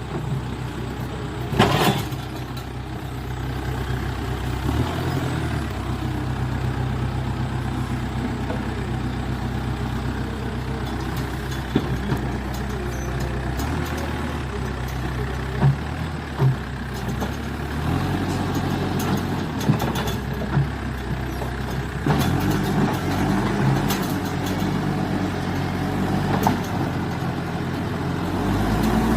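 Backhoe loader's diesel engine running, its pitch rising and falling with load, with a few sharp metallic knocks along the way.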